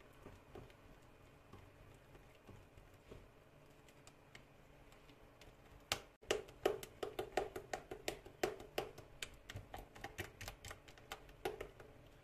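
Silicone spatula stirring thick cocoa cake batter in a glass bowl. Faint scraping at first, then from about halfway a quick run of clicks and taps against the glass, about five a second, stopping shortly before the end.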